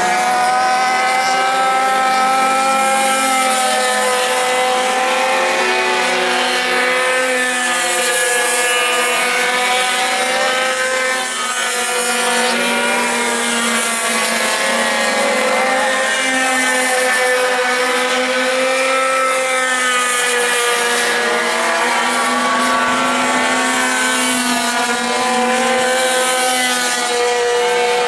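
Several pocket bikes' small two-stroke engines racing at high revs. Their overlapping pitches rise and fall as the bikes accelerate out of and brake into the corners.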